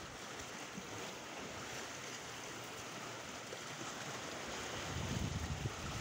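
Small sea waves washing and splashing steadily over shoreline rocks. Near the end, low gusts of wind buffet the microphone.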